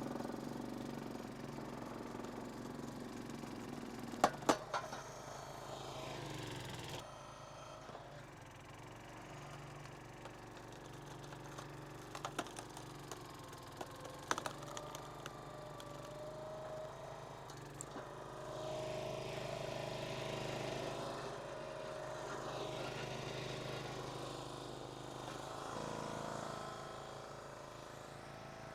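An engine running steadily at idle, with a few sharp knocks about four seconds in and again around twelve to fifteen seconds.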